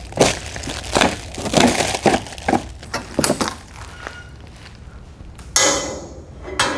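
Plastic stretch wrap being torn and pulled off a pallet of cardboard-packed sheet-steel parts: a run of sharp crackles and rustles, then a longer crinkling rustle about five and a half seconds in.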